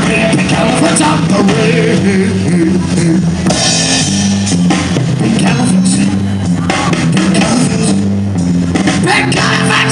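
Live rock band playing: drum kit and electric guitar, loud and continuous.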